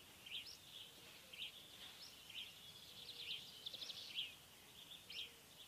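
Faint bird chirps: short high calls about once a second, with a brief rapid trill near the middle.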